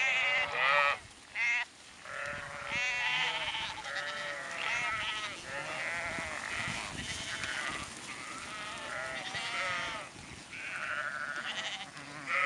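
A flock of sheep bleating, many wavering calls overlapping at different pitches with hardly a pause.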